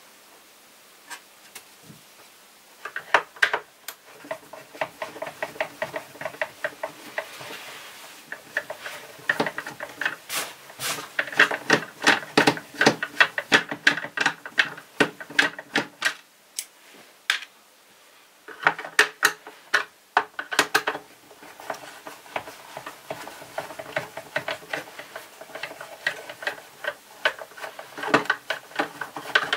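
Screws being turned out of a Vorwerk VR100 robot vacuum's plastic housing with a screwdriver: runs of rapid creaking clicks starting a few seconds in, with a short pause past the middle.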